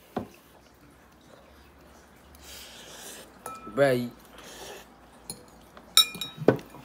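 Metal forks clinking against ceramic bowls, with breathy exhales and a short wavering vocal groan about four seconds in. Near the end comes a ringing clink and a loud knock as a drinking cup is handled.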